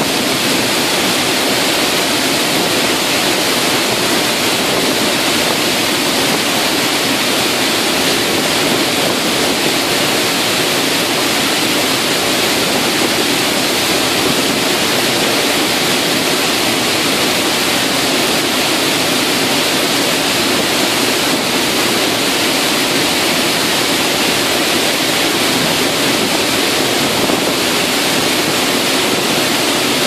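Sgwd yr Eira waterfall pouring down close at hand, heard from the path behind the falling curtain of water: a loud, steady rush of water with no change throughout.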